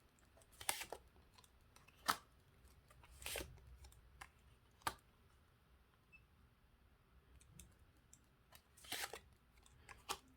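Tarot cards being handled on a table: a few faint, brief snaps and rustles at irregular intervals.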